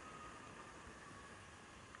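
Near silence: a faint even hiss with a faint thin tone that drifts slowly lower, and one small click near the end.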